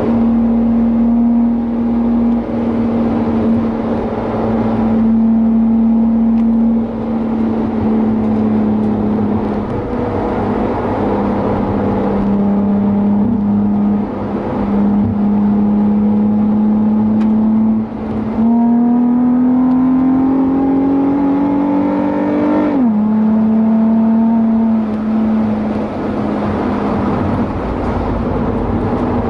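Nissan 350Z's 3.5-litre V6 through an aftermarket high-flow cat, Y-pipe and cat-back exhaust, heard from inside the cabin at track speed. The engine note holds steady with brief lifts off the throttle, then rises under hard acceleration for about four seconds before dropping sharply at an upshift.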